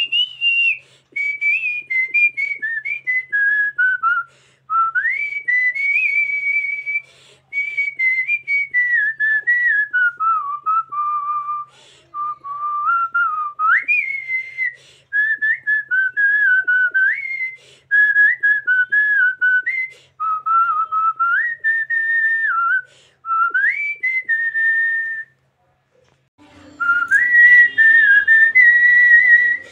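A woman whistling a song melody through puckered lips: a clear single pitch stepping and gliding up and down in phrases, with short breath pauses. The melody stops for about a second near the end, then picks up again over a faint low hum.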